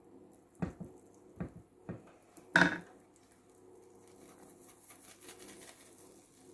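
A few short knocks and clinks of a spatula and a small bowl being handled at the pan, the loudest a ringing clink about two and a half seconds in. Then a faint, soft hiss as sugar is sprinkled into hot melted butter in a nonstick frying pan.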